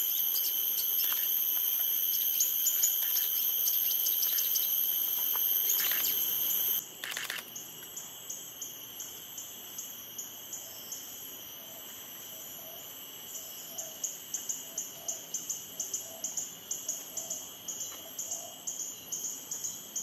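Copper-throated sunbirds calling with short, high chips: a female's scattered calls first, then a male's, which quicken into a rapid run of chirps about two to three a second in the second half. A steady, high insect drone runs underneath.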